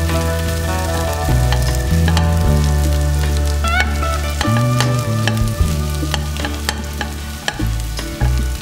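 Diced boiled potatoes frying in hot ghee in a nonstick wok, sizzling steadily while a spatula stirs and scrapes them, with frequent short clicks of the spatula against the pan. Background music with held low notes runs underneath.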